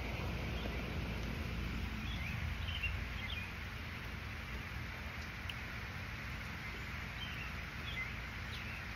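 Steady hiss of spring rain over a low rumble, with a few faint bird chirps about two to three seconds in and again near the end.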